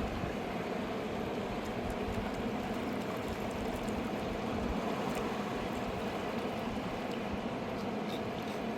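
A fast mountain river rushing in a steady roar of water, with no let-up.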